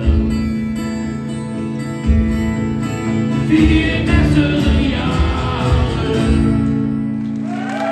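Two acoustic guitars strumming the closing chords of a song, with a voice singing over them in the middle; about six seconds in a final chord is struck and left to ring.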